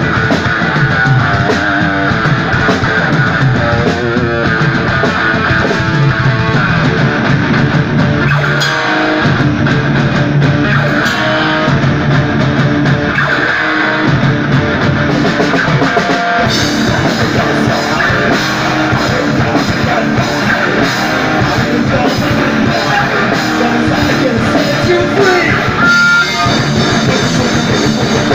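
Rock band playing live: electric guitars, bass and drum kit, an instrumental passage with no singing heard. The sound turns fuller and brighter about halfway through, with a brief break near the end.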